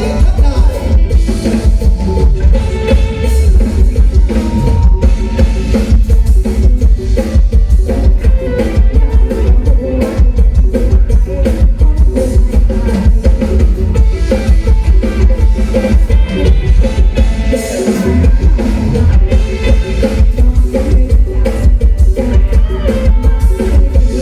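Loud live band music with a drum kit keeping a steady beat over heavy bass. The bass drops out briefly about three-quarters of the way through.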